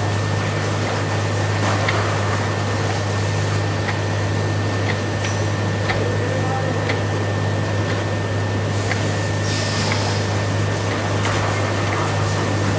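CMI TA 3 PP automatic rotary capping machine running steadily with a low hum and light ticks about once a second.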